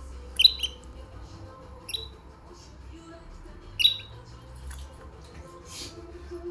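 A bird giving short, sharp, high-pitched calls: three calls, about half a second in, at two seconds and just before four seconds, the first and last the loudest.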